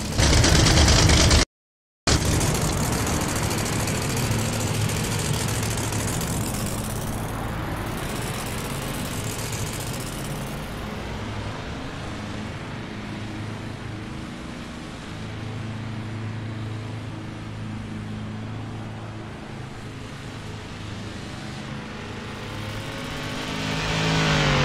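Motor vehicle engines running steadily after a brief louder clip at the start. Near the end, an engine swells and rises in pitch as it revs or draws close.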